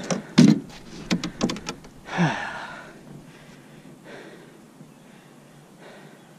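A quick run of sharp knocks and thumps in a boat, then a short rushing burst about two seconds in, fading to a faint background hiss.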